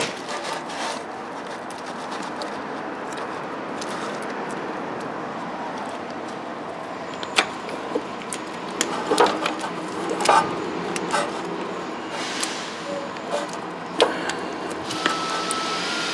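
A wrench on a spring-loaded serpentine-belt tensioner and a ribbed belt being worked onto the pulleys by hand, engine off: scattered clicks and knocks, most of them in the second half, over a steady hiss.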